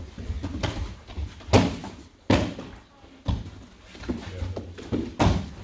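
Children breakfalling on foam martial-arts mats: bodies landing and arms slapping the mat, giving a series of sharp thuds and slaps, about four loud ones a second or so apart with softer ones between, echoing in a hall.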